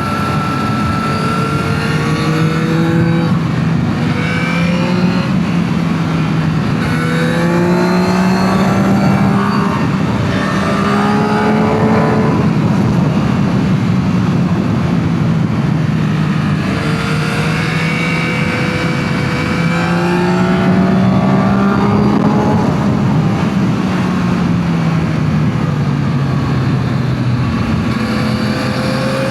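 Yamaha MT-09 SP's inline three-cylinder engine on its stock exhaust under way, pulling up through the gears in several rising runs, each broken by a drop in pitch at the shift, then easing off with the revs falling, over steady wind rush.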